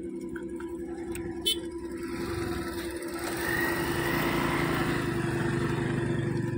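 A motor vehicle's engine running steadily, with louder engine and road noise building from about two seconds in and holding. A single sharp click about one and a half seconds in.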